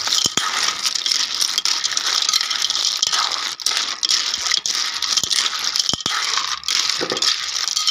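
Freshwater snail shells rattling and clinking against each other and a metal wok as they are stirred with a metal spatula, a dense run of many small clicks.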